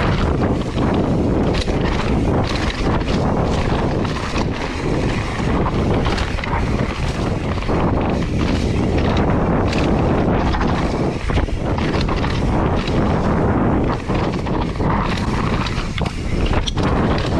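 Wind rushing over the microphone and steady tyre noise as a mountain bike descends a dusty dirt trail, broken by many short knocks and rattles from the bike over bumps.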